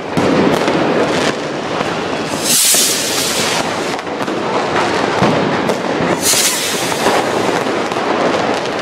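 Dense New Year's Eve fireworks: a steady barrage of firecracker bangs and rocket reports, with two loud bursts of hissing crackle, one about two and a half seconds in and another a little after six seconds.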